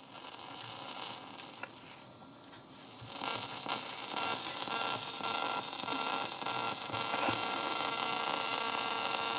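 Sony WM-190 Walkman playing a tape at full volume, its output a hiss and hum with crackling instead of clean sound, the fault of spent or leaking electrolytic capacitors. The hiss dips about two seconds in, then comes back louder and steadier about three seconds in.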